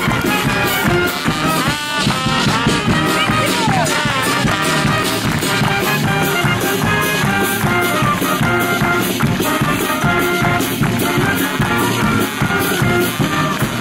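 Lively brass band music with a steady, quick beat; one note slides down in pitch a few seconds in.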